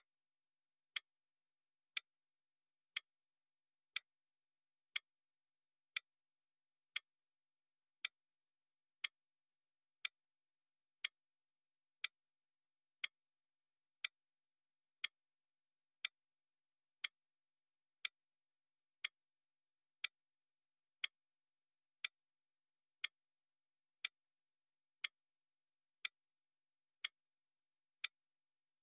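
Clock ticking once a second, a sharp click each time with silence between, keeping time with a countdown timer.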